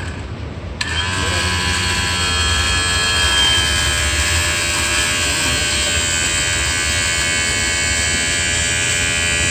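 Electric motor, likely a truck's hydraulic cab-tilt pump, buzzing steadily as the tilted cab is lowered; it switches on suddenly about a second in.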